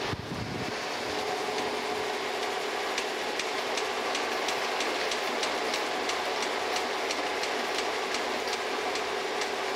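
Milling machine table moving under its power (rapid) traverse: a steady motor-and-gear drone with a held tone and a regular fast clicking, starting about half a second in and stopping near the end.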